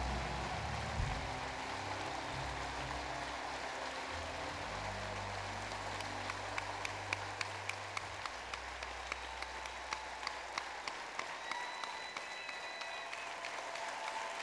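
Concert audience applauding in a large hall, with the band's last low held note dying away over the first several seconds. A few sharper single claps stand out close by near the middle.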